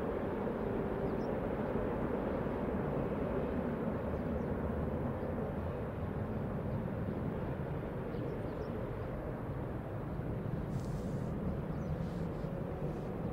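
Boeing 747 freighter's four jet engines on final approach to landing: a steady rumble that eases slightly as the jet moves away down the runway.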